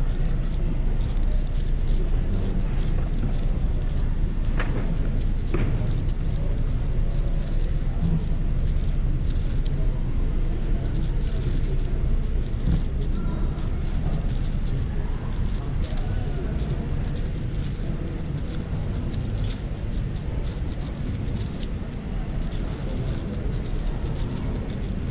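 Quick, irregular clicking of a MoYu AoShi WR M 6x6 speedcube being turned, over a steady low rumble of hall background noise with faint murmuring voices.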